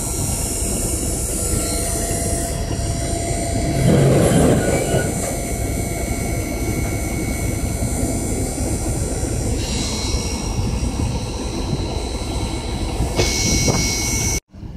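Steady loud rumble and rattle of a vehicle on the move, with thin metallic squeals over it. It swells louder about four seconds in and cuts off abruptly just before the end.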